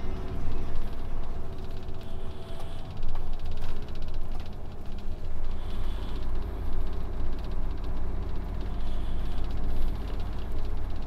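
Heavy truck running, a steady low engine rumble with a haze of road or wind noise over it.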